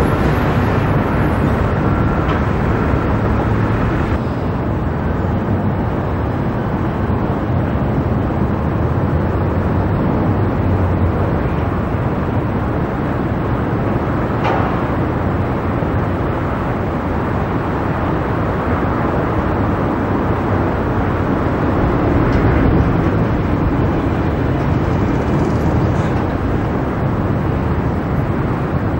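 Steady city traffic and rail noise, a continuous roar with no single vehicle standing out, and a brief click midway.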